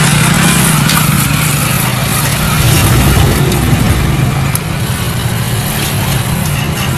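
Mitsubishi Fuso dump truck's diesel engine running hard and steady under heavy load as the truck labours, stuck in deep mud.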